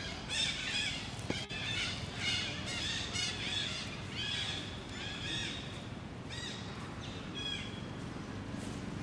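Infant macaque squealing: a rapid series of short, high cries that thin out after about five seconds, with one sharp click about a second and a half in.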